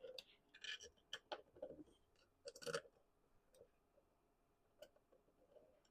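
Scattered small clicks and knocks of a rotary attachment's parts being handled, aligned and locked down by hand. They come irregularly, with the loudest knock nearly three seconds in.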